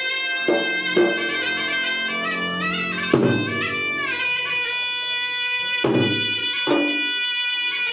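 Traditional Makassar gendang ensemble music: a shrill double-reed pipe (pui-pui) holds a steady, slowly stepping melody over scattered gendang drum strokes, about half a dozen hits.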